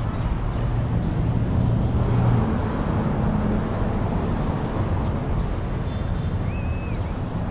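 Steady low rumble of a car running and moving, with a short high chirp near the end.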